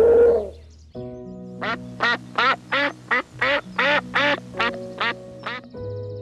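An animal calling in a rapid series of about a dozen short calls, roughly three a second, after a brief loud sound at the very start, over background music with sustained tones.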